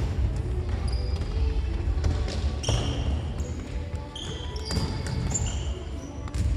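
Indoor futsal play on a wooden gym floor: sports shoes squeak in short high chirps several times, mostly in the second half, with a few sharp knocks of the ball being kicked or hitting the floor.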